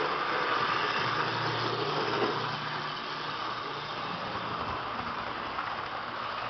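HO-scale model trains, a Jouef Picasso railcar and a Mehano TGV Atlantique, running on the layout's track: small electric motors whirring and wheels rolling over the rails. A low steady hum sits underneath from about one to three seconds in.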